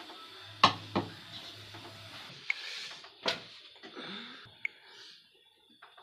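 Kitchen clatter of utensils and dishes being handled: a few sharp knocks, two close together about half a second in and another about three seconds in, with lighter clinks between.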